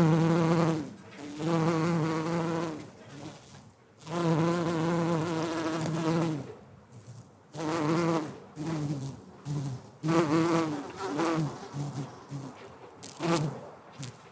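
Bumblebee buzzing in flight as it moves from flower to flower. The low buzz comes and goes in passes of one to two seconds, then breaks into shorter stop-start bursts in the second half as it settles and lifts off again.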